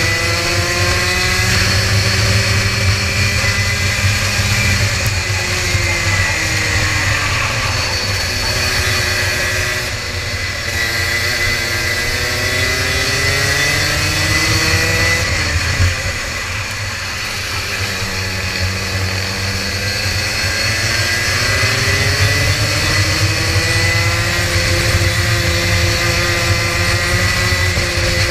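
Rotax Max 125cc single-cylinder two-stroke kart engine at racing speed, heard on board. Its pitch falls several times as it slows for corners and climbs again as it accelerates out onto the straights.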